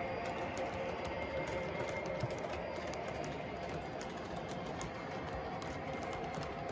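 Model freight train of container well cars and boxcars rolling along the layout track: a steady rolling noise of wheels on rail, with scattered light clicks.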